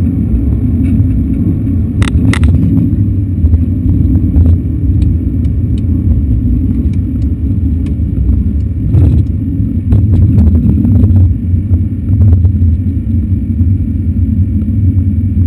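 Aircraft cockpit noise on the runway during landing: a loud, steady low rumble, with a couple of sharp knocks about two seconds in and a few more rattles and knocks past the middle.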